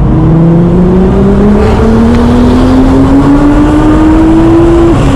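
Nissan GT-R's twin-turbo V6 under hard acceleration, its pitch climbing steadily through one gear. There is an upshift drop right at the start and another near the end.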